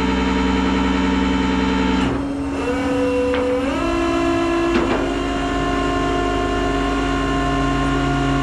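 Tow truck running while it loads the disabled pickup, with several steady whining tones that step up in pitch a few times, as from engine speed and winch or bed hydraulics changing. Two short clanks about three and five seconds in.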